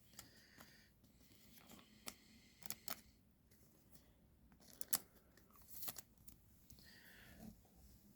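Faint handling of trading cards and plastic: scattered light clicks and short rustles as a card is handled, probably being slid into a plastic sleeve.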